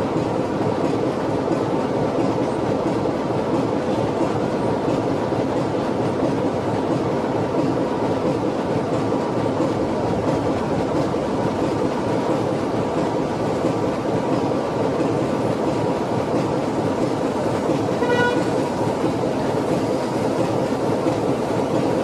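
A steam locomotive's whistle gives one short toot about 18 seconds in, over a steady noise.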